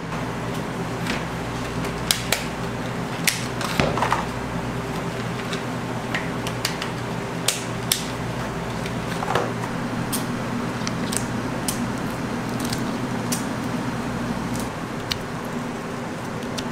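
Clear plastic food trays and lids clicking and tapping as they are handled and set down on a stainless steel table: scattered sharp clicks over a steady machine hum.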